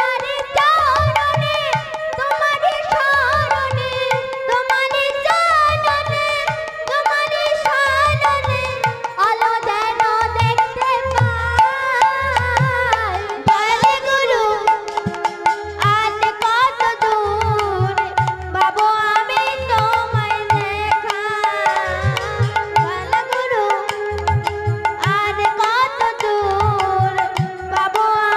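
Bengali kirtan music: a hand drum plays a repeating pattern of low strokes in clusters under a continuous wavering melody line.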